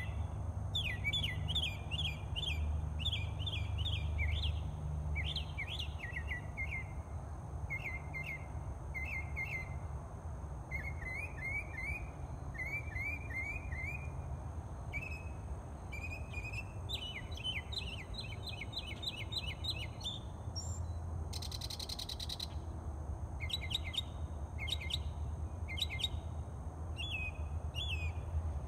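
A songbird singing at dawn: short chirped notes delivered in quick runs, each phrase repeated several times before it switches to another, over a steady low rumble. A brief hiss cuts in about three-quarters of the way through.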